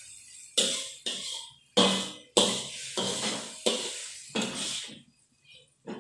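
Stir-frying shredded cabbage in a hot wok: a metal spatula scrapes and tosses the vegetables, and they sizzle. About eight sharp strokes come at irregular intervals, each fading quickly.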